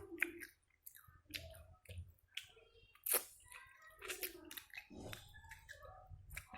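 Close-miked chewing and wet mouth clicks of someone eating chicken in sweet soy sauce, irregular and fairly quiet, with one sharp louder click about three seconds in.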